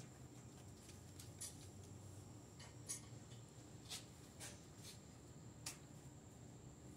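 Near silence over a faint steady room hum, with a few scattered faint clicks and taps from handling the metal frame of a home gym multi-station machine.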